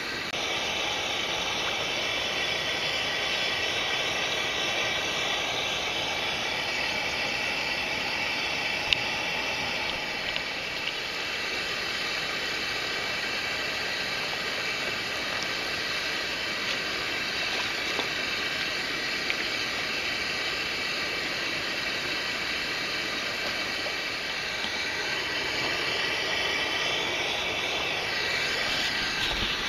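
Steady rushing of a mountain stream's flowing water, an even hiss with no breaks.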